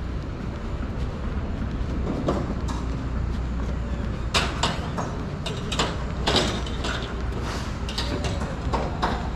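Outdoor street ambience: a steady low rumble with scattered sharp clicks and knocks, which grow frequent from about four seconds in.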